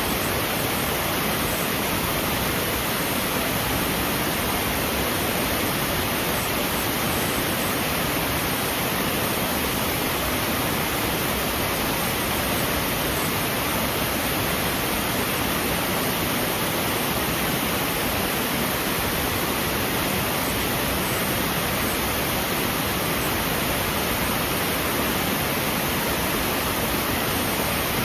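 Waterfall water rushing in a steady, unbroken roar of noise, even in level throughout.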